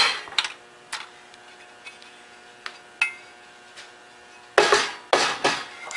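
A small-engine sump cover being lifted off and handled on a workbench. A sharp knock at the start, a few light clicks and clinks, then two louder clattering knocks near the end.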